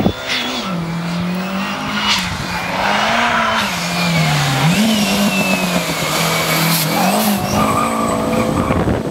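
Renault 5 rally car's engine held at high revs, its note rising and falling as the throttle is lifted and fed in through the bends, with a high wavering tyre squeal over it. There are a couple of sharp cracks near the start.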